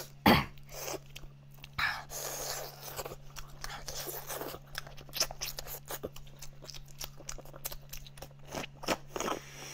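Close-miked eating of braised goat shank: wet biting, chewing and lip smacks on meat and bone, with a longer noisy suck about two seconds in as marrow is drawn from the bone.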